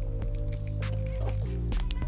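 Background music: an instrumental beat with a steady deep bass line and regular high ticks.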